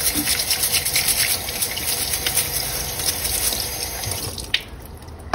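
Kitchen faucet running into a sink while a cleaned blue crab is scrubbed with a small bristle brush under the stream. The water stops about four seconds in, followed by two small knocks.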